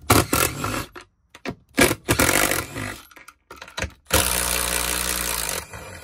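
Milwaukee Fuel compact cordless impact driver backing out the mounting bolts of an airbag control module. It runs in several short bursts, then a steady run of about a second and a half near the end.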